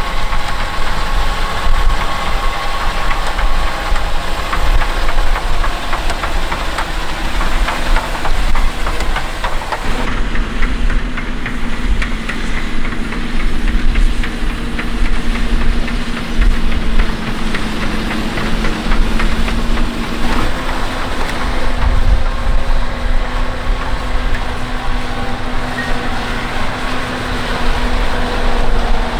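John Deere 6250R tractor's six-cylinder diesel engine running steadily under load while pulling a plough, a deep rumble with a steady drone. The engine note jumps abruptly about ten and twenty seconds in.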